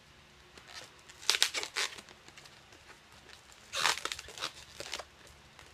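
Latex 260 modelling balloons rubbing and squeaking as they are twisted and handled: a cluster of sharp squeaks about a second in and another around four seconds, with small scattered crinkles between.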